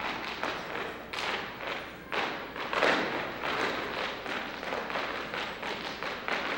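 Irish dance hard shoes striking the stage floor in rapid, rhythmic taps and stamps from a group of dancers dancing together.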